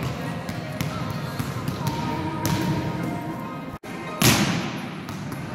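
Volleyballs being struck and bouncing on a sports hall floor, each impact echoing round the hall; the loudest hit comes about four seconds in, just after a momentary break in the sound.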